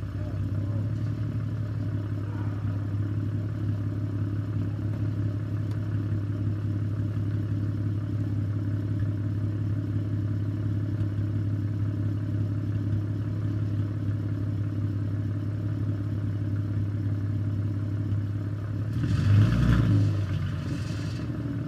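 Car engine idling steadily, its exhaust running through freshly fitted long-tube headers, with a brief louder surge, like a short rev, near the end.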